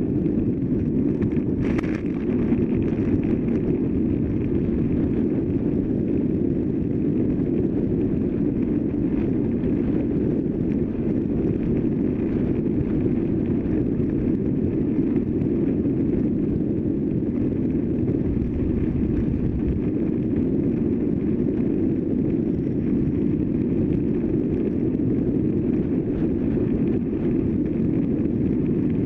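Wind rushing over the microphone of a camera mounted on a road bike ridden at speed, a steady low rumble; a short knock about two seconds in.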